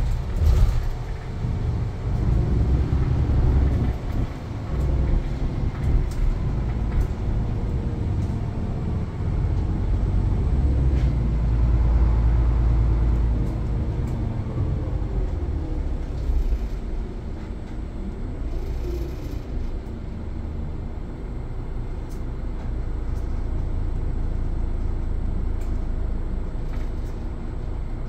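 Running noise inside the cabin of a Mitsubishi Fuso MP35 one-step city bus: a steady low engine and road rumble, with the engine note rising and falling a few times as the bus speeds up and eases off.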